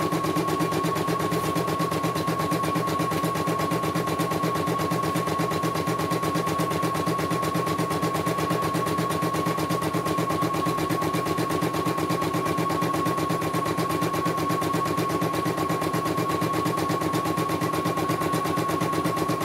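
CNY E900 portable computerized embroidery machine stitching a test design at speed: a fast, even needle clatter over a steady high whine, running smoothly without a break.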